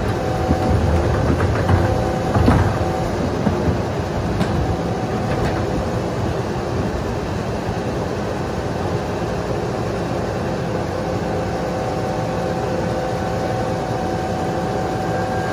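Rear-loader garbage truck's diesel engine running steadily, with a steady whine at the start and again from the middle on. A couple of knocks about two seconds in come from trash being thrown into the rear hopper.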